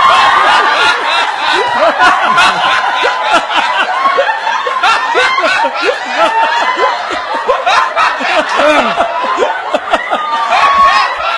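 An audience laughing, many voices at once.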